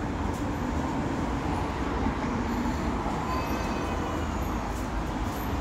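Steady low rumble of a passing rail vehicle, with faint thin squealing tones from its wheels about three seconds in.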